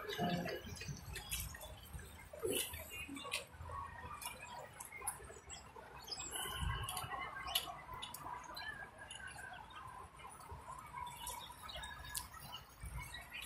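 Outdoor city street-and-park ambience: a steady low traffic rumble with scattered short chirps and ticks throughout.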